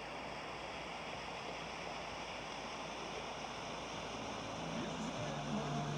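Steady rushing of floodwater pouring over a submerged road bridge. Near the end, a low humming sound with several pitched tones comes in over it.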